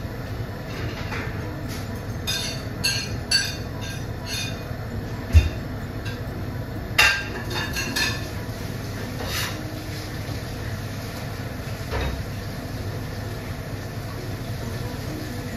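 Soup simmering in a stainless steel pot on a gas stove: a steady low rumble, with several short runs of light metal clinks from a ladle against the pot and one dull knock about five seconds in.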